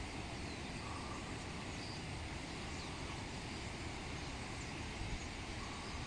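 Huge murmuration of common starlings flying overhead: a steady rushing noise from the mass of wings, with faint scattered high chirps.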